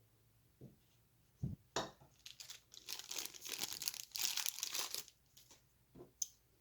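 Packaging being handled and unwrapped: a couple of soft knocks, then a few seconds of dense crinkling and tearing that dies away, and a single sharp click near the end.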